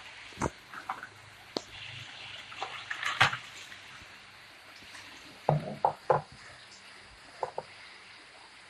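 Scattered clicks and knocks of plastic toy-bike parts being handled and fitted together during assembly, with a few louder knocks about three seconds in and again around five to six seconds in.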